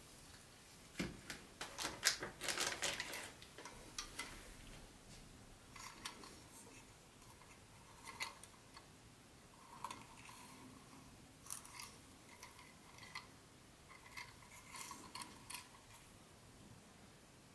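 Hands handling the train set's plastic parts and packaging: scattered clicks and rustles, busiest in the first few seconds, then short clusters of clicks every second or two.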